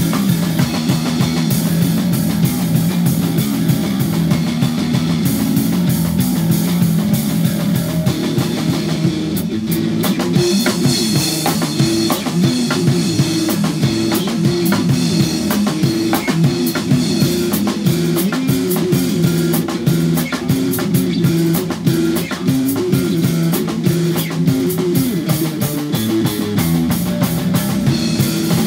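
Live instrumental progressive metal from an electric bass and a drum kit: fast bass riffs over busy, rapid drumming with cymbals.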